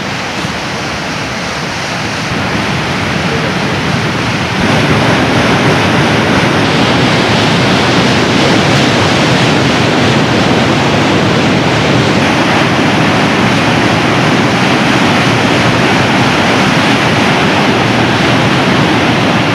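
River rapids and a waterfall: white water rushing over rock in a steady, loud wash of noise. It grows louder over the first few seconds and steps up again about four and a half seconds in, then holds steady.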